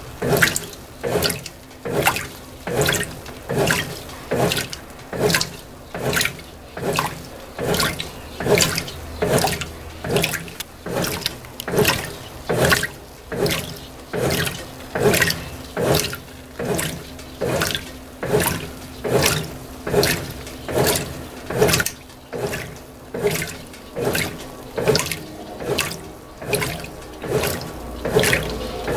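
Brastemp BWT12 top-loading washing machine agitating a load of clothes in water on its normal agitation profile: a regular swish-and-slosh of water, about one and a half strokes a second, with a faint steady hum underneath.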